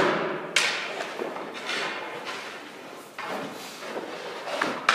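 Hockey goalie's skates scraping across the rink surface in repeated lateral pushes: about four sharp scrapes, each fading away, the last near the end.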